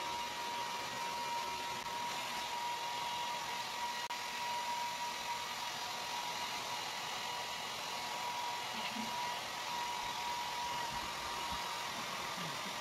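Hand-held hair dryer running steadily: an even rushing hiss with a steady high-pitched whine.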